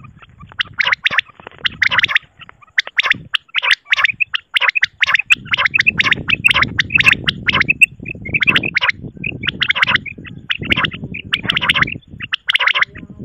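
Common quail calling: fast clusters of short, sharp notes repeated over and over, with a low rumbling noise under the calls from about five seconds in.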